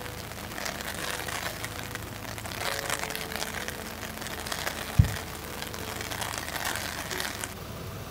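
Rain pattering steadily in fine ticks, with one sharp, loud low thump about five seconds in. The patter drops away abruptly about seven and a half seconds in.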